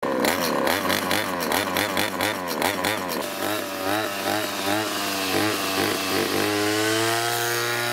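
Two-stroke brush cutter engine with an expansion-chamber exhaust, cutting grass. For the first few seconds the engine speed rises and falls quickly. It then swings more slowly, and from about two-thirds in it settles into a steady note that slowly climbs.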